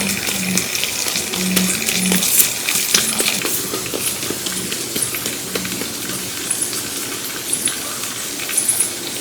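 Many small, sharp clinks and clicks of hard objects, coming quickly and irregularly throughout.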